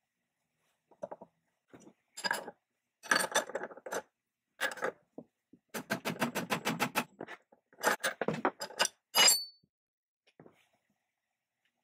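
Steel parts clinking and tapping as a ball bearing, nut and wrenches are handled on the mortiser's spindle shaft. About six seconds in comes a quick, even run of ratchet clicks, about eight a second, as the spindle nut is tightened, and a sharp metal clank follows near the end.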